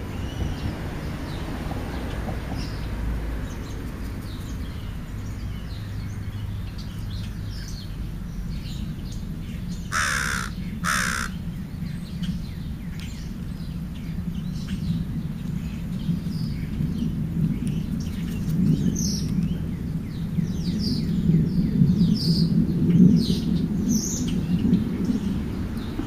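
Crow cawing twice in quick succession, about ten seconds in, with scattered faint chirps of small birds and a steady low rumble that grows louder toward the end.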